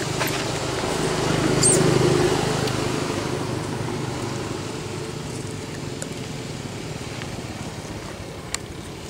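Motor vehicle engine droning as it passes on a nearby road, swelling to its loudest about two seconds in and then slowly fading away.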